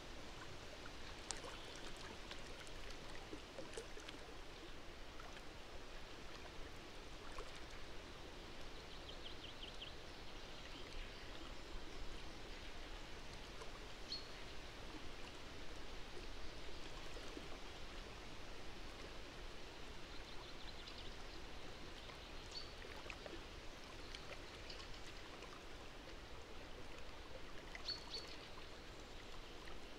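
Outdoor ambience: a steady, even rushing like running water, with a few faint, short high chirps here and there.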